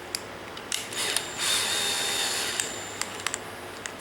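Power drill with a spot-weld cutter arbor run briefly without load, a steady whine for about a second, with a few sharp clicks of handling before and after.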